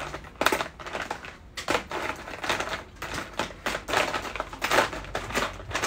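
Plastic pens and markers clicking and clattering against each other in a quick, irregular series as they are rummaged through for particular colours.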